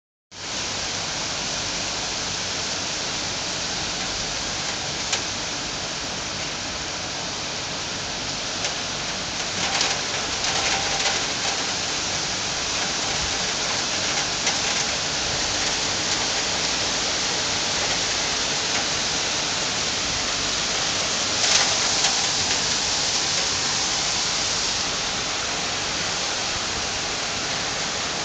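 Heavy rain of large drops falling on a paved courtyard and trees, a steady dense hiss that swells briefly louder about ten seconds in and again a little past twenty seconds.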